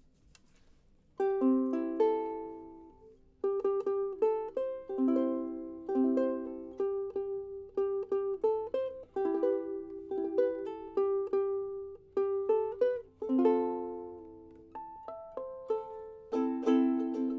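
Vintage Kamaka soprano ukulele in koa being played: one chord about a second in that rings and fades, then from about three seconds in a tune of plucked notes and chords.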